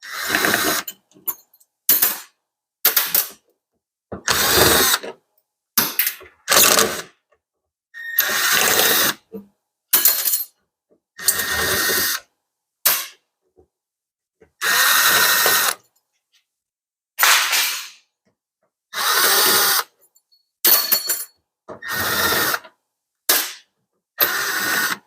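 Power drill backing screws out of a refrigerator's inner liner, run in a string of short bursts of up to about a second and a half, each stopping abruptly with a brief pause before the next.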